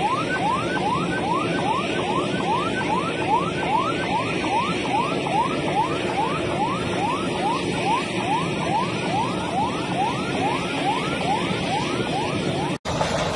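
An emergency vehicle's siren yelping, a fast rising sweep repeated about two to three times a second over steady background noise. It cuts off suddenly near the end.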